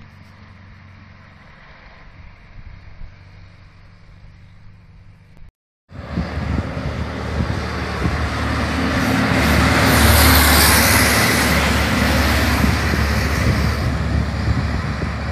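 Sentinel S4 steam waggon on the move. It is faint and distant at first. After an abrupt cut it approaches and passes close by, loudest about two-thirds of the way through, then draws away.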